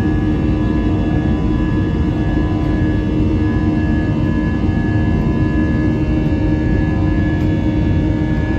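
Airbus A320's IAE V2500 turbofan engines and airflow heard inside the cabin: a steady, even rush of noise with a constant low hum and a steady high whine running through it.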